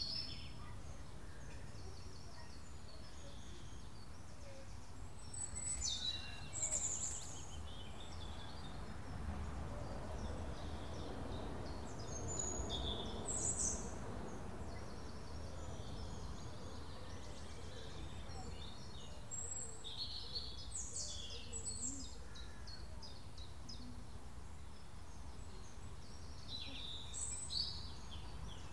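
Garden birdsong: small birds chirping and singing in short, high calls scattered throughout, over a steady low outdoor rumble that swells for a few seconds in the middle.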